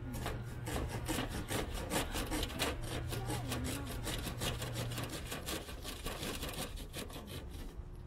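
Small saw blade of a folding knife sawing through a stick of firewood in quick back-and-forth strokes, stopping about a second before the end.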